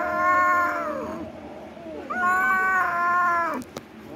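A domestic cat giving two long, drawn-out meows held at a steady pitch, the second starting about two seconds in. A brief click follows near the end.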